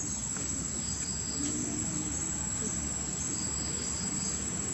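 Steady high-pitched drone of an insect chorus.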